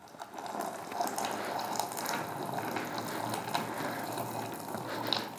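Molten bronze pouring from a tilted crucible into a plaster mould: a steady rushing crackle dotted with many small ticks and clicks.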